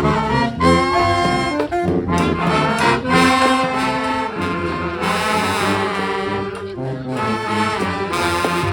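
Brass band playing live: several horns together over a repeated low bass note, with a wavering high line about five seconds in.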